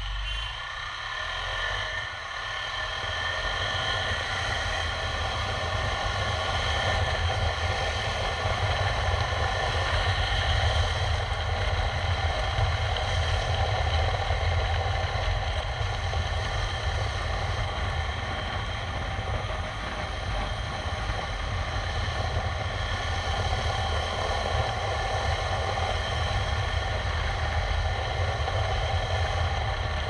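KTM 390 Adventure X's single-cylinder engine running under load as the motorcycle pulls away and picks up speed. The sound grows louder over the first ten seconds or so, then holds steady at cruising speed, with continuous road and wind noise underneath.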